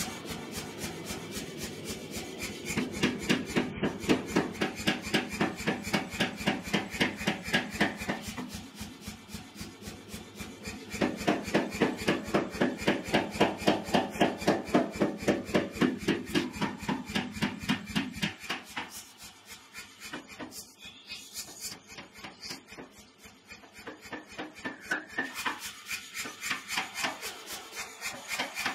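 Self-contained pneumatic power hammer pounding a hot block of 2-inch round steel stock in a rapid, steady run of blows. The blows come heavier in two long stretches, starting about three seconds in and again about eleven seconds in, and again near the end, with lighter, quieter cycling between them.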